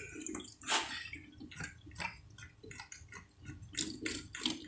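Diesel fuel running from a bleed hose into a plastic bottle, splashing and trickling unevenly, as air is bled out of the WD615 diesel's fuel filters. The fuel is now coming through without air.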